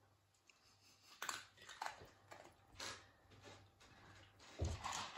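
Dog chewing small dry food pieces taken from a hand: a few irregular, faint crunches. A louder low thump comes near the end.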